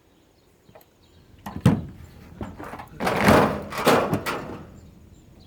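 Hand teardown of an air purifier: a sharp knock about a second and a half in, then a couple of seconds of rough scraping and rattling as its parts are worked apart.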